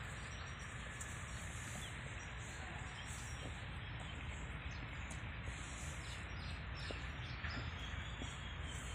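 Steady background noise with a few faint bird chirps.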